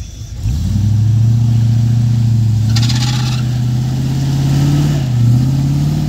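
Range Rover Classic's 3.9-litre V8 engine revving up about half a second in and held at high revs as the car drives through deep mud, its pitch wavering and dipping briefly near the end. A short hiss sounds about halfway through.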